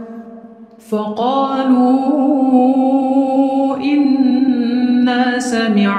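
Quran recitation in a melodic chanted style, the reciter drawing out long held notes. A brief pause for breath comes first, then the voice sets in about a second in with one long sustained phrase, and a second held phrase follows near the four-second mark.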